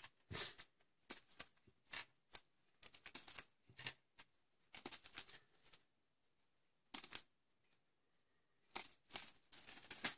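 Small clear zip-lock plastic bag rustling and crinkling in short irregular bursts as small plastic model parts are dropped into it and it is pressed shut.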